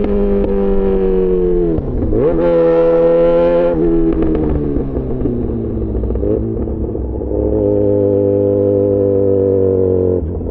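Yamaha XJ6 S's inline-four engine through an SC-Project aftermarket exhaust, under way on the road. The note sinks, dips sharply and climbs back about two seconds in, holds, eases off, then holds steady again before dropping off near the end.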